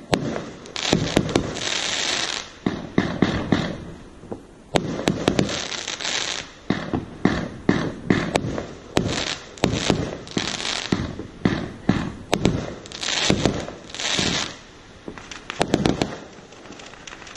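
Fireworks display: a rapid, irregular series of bangs from aerial shells bursting, with stretches of hissing between them.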